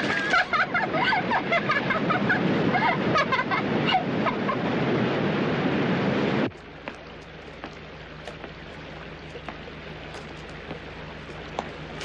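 Waterfall rushing loudly, with wavering pitched sounds over it in the first few seconds. About six and a half seconds in it cuts suddenly to a much quieter rushing of water, with scattered small clicks.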